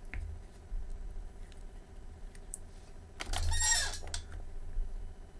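Yihua 948 desoldering gun's vacuum pump triggered once, about three seconds in, giving a short hissing suction burst of just under a second as it pulls molten solder off a component lead. A faint low hum and a few small clicks are heard around it.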